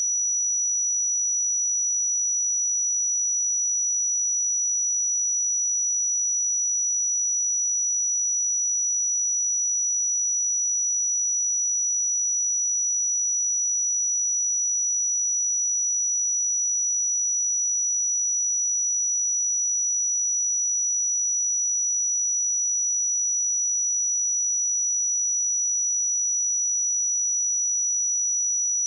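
A steady, high-pitched pure sine-wave test tone at 5876 Hz, held at one pitch and level.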